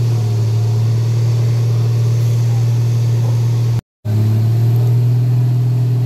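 Tow truck's diesel engine running steadily with a low hum while its crane lifts wreckage. The sound cuts out for a moment about four seconds in and resumes slightly higher in pitch.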